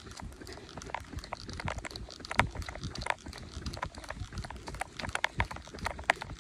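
A marathon runner's footsteps on a paved path, heard close on a handheld phone, with irregular knocks and rubs from the phone in her hand, the sharpest about two and a half seconds in.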